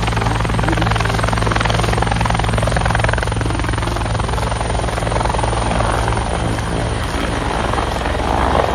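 Helicopter running steadily: a fast rotor chop over a low engine drone.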